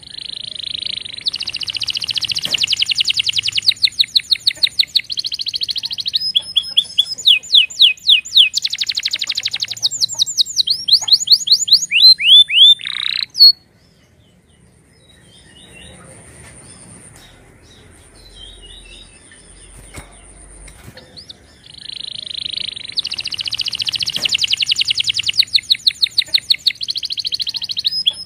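Domestic canary singing: loud, fast high trills and rolling tours of rapid repeated notes for about thirteen seconds. The song breaks off into a quiet pause with a few faint chirps, then resumes near the end.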